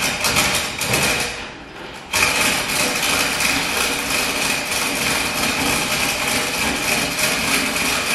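Hand-held power tool working along the fibreglass hull's top edge. After a couple of short bursts it runs steadily from about two seconds in, with a high whine over a rough cutting noise.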